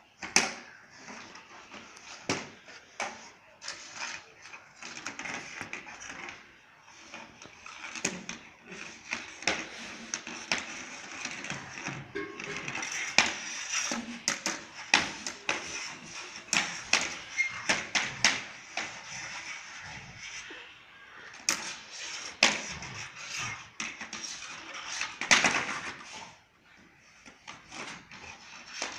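A long-handled floor wiper being dragged by its rubber blade by a Labrador, scraping across concrete paving, with many sharp knocks and clatters from the handle striking the ground.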